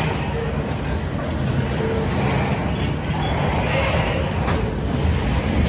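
Flatcars loaded with long ribbon rail rolling past close by: a steady noise of steel wheels on the track, with a single sharp knock about four and a half seconds in.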